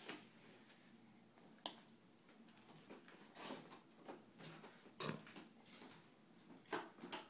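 Faint, scattered baby mouth noises and soft grunts from an infant chewing finger food, with a sharp little click near the start. It is otherwise quiet.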